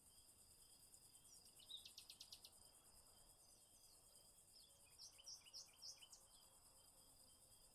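Faint nature ambience of insects trilling steadily and high, with bird chirps: a quick run of chirps about two seconds in and a handful of short falling chirps around five to six seconds.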